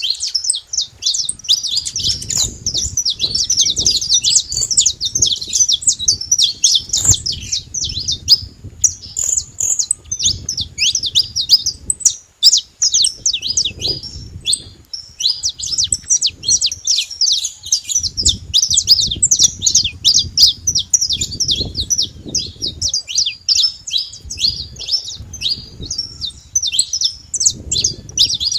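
Wild saffron finches (canário-da-terra) singing: a dense, continuous run of rapid, high chirping notes, with a low rumble underneath at times.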